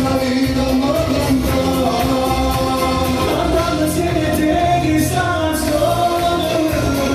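A male singer sings long held notes over amplified backing music with a steady beat, played through a PA speaker.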